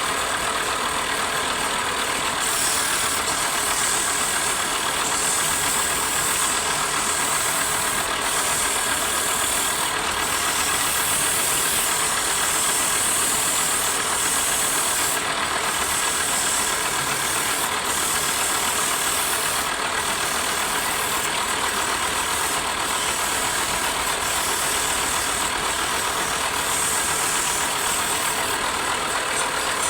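Wood lathe running steadily, with a high hiss that swells and fades every few seconds.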